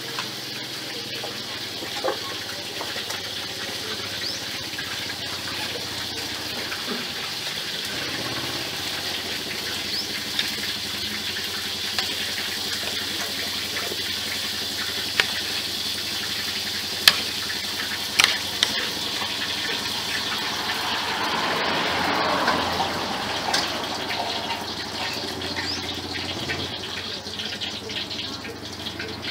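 Metal spoon and fork clinking sharply against a ceramic plate now and then while eating, over a steady rushing background noise that swells for a few seconds about three-quarters of the way through.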